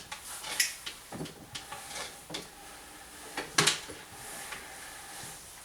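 Fleck 7000SXT control valve being screwed by hand onto the threaded neck of the softener resin tank: irregular plastic clicks, knocks and rubbing, with one sharp knock about three and a half seconds in.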